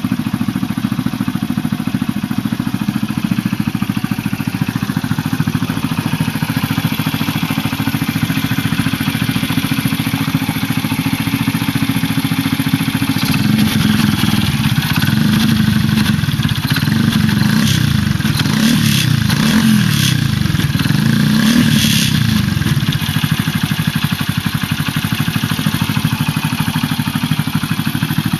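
Honda Gorilla Z50J's four-stroke single-cylinder engine, a CD90 unit bored up to 105cc, idling steadily. About halfway through it is given a run of quick throttle blips that rise and fall in pitch, then it settles back to idle.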